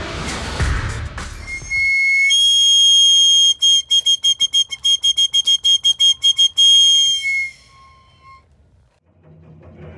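A small hand-held whistle blown in one long shrill note, then in a rapid string of short blasts, about six a second, ending with a slight drop in pitch. The whistle is blown as a ceremonial call to the eagles.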